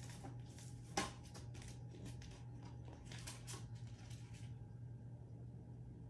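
Faint rustling and small handling noises of packaging and accessories being moved about, with a sharp click about a second in; the rustling stops at about four and a half seconds, leaving a steady low hum.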